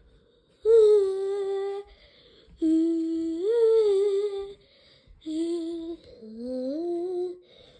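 A voice humming in four long, drawn-out notes. Some are held level and others slide upward in pitch.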